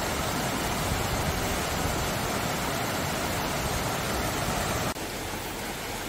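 Mountain stream water rushing and cascading over a granite rock slab, a steady even rush. About five seconds in it cuts to a slightly quieter, softer rush of the same stream.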